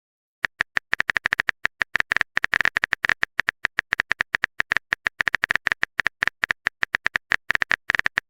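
Phone keyboard typing sound effect: a quick, irregular run of short taps starting about half a second in and running on without a break.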